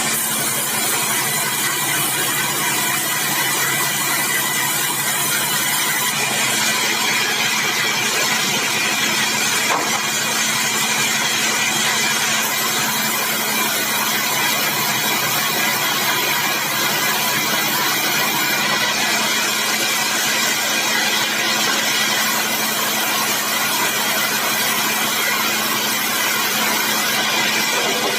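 Circular sawmill machinery running steadily: a constant engine-like drone with several steady whining tones and no distinct cuts or changes.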